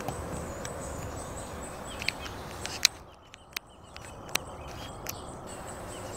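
Quiet outdoor ambience with a thin, steady high-pitched tone and a few sharp clicks scattered through it.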